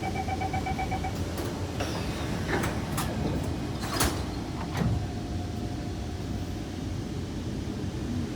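Train door-closing chime of a Kawasaki C151 MRT train: rapid beeping for about a second. The sliding doors then shut with several clunks and knocks over the carriage's steady rumble.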